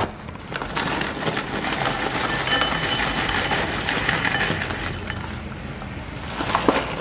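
Granola clusters poured from a plastic bag into a ceramic bowl, a dense clattering rattle of pieces landing. It starts about half a second in and tails off near the end.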